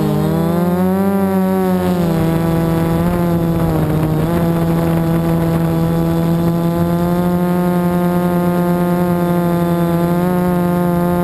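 FPV drone's electric motors and propellers buzzing loudly, as picked up by its onboard camera. The pitch swings up and down over the first few seconds as the throttle is worked through banked turns, then holds steady.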